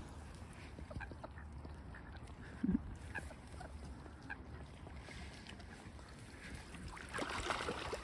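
Mallard ducks quacking quietly, with one louder, short, low quack a little under three seconds in.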